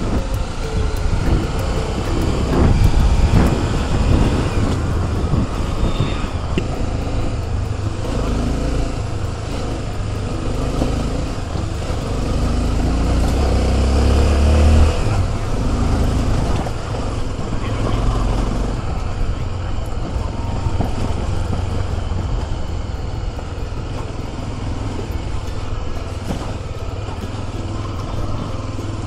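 A light motorcycle's engine running steadily while under way, with heavy low rumble throughout.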